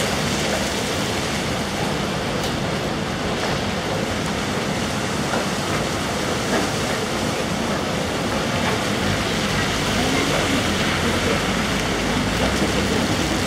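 Cars rolling slowly through standing floodwater, their tyres splashing and hissing through it, over a steady wash of heavy rain.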